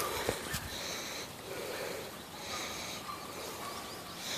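Rustling and breathing close to the microphone as someone walks through tall grass and weeds, in several noisy swishes about a second apart.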